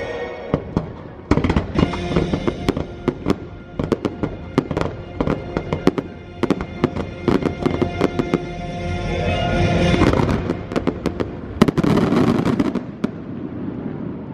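Fireworks bursting and crackling over an orchestral show soundtrack, with many sharp bangs in quick succession and a swell of louder bursts and music toward the end.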